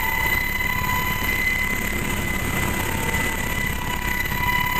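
HH-60 Pave Hawk helicopter heard from inside its cabin: a steady rumble of engines and rotors with a constant high-pitched whine over it.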